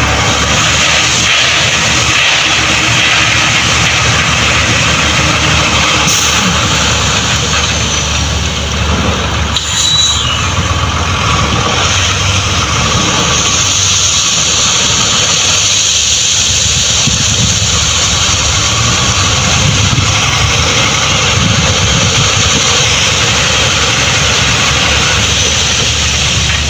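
Heavy diesel construction machine running steadily nearby.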